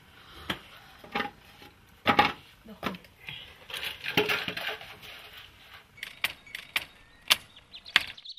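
Irregular sharp clicks and knocks from cooking over an open wood fire: the fire crackling and a metal pan and pot being handled, the loudest knocks about two seconds in.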